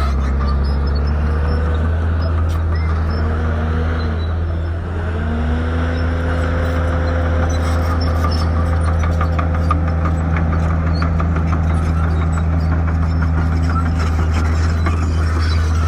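Shantui bulldozer's diesel engine running steadily, with a whining tone that dips briefly about five seconds in and then climbs back. A rapid light clicking comes through the second half.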